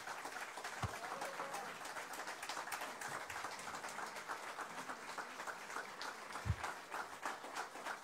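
Audience applauding steadily to welcome a speaker to the podium. Two dull low thumps stand out, about a second in and again after six seconds.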